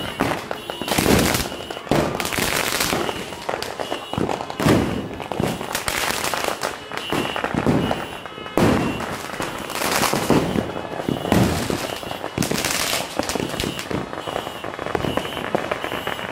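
Fireworks and firecrackers going off in a dense, irregular barrage of loud bangs, one after another with hardly a pause.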